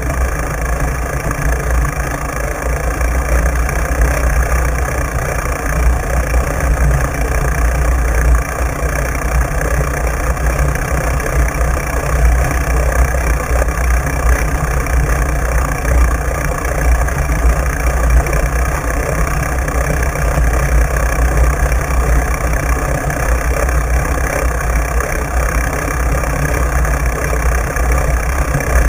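Steady wind and riding rumble on a bicycle-mounted camera rolling over wet beach sand: a deep, unbroken rumble with a hiss above it.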